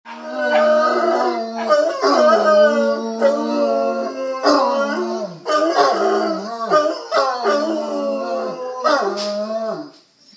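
Crated dogs howling in long, wavering notes, one howl after another for about ten seconds.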